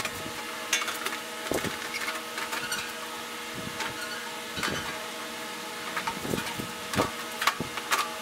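Scattered knocks and clicks as the side panel and hood of a Kubota BX23D tractor are handled and fitted back on, over a steady background hum.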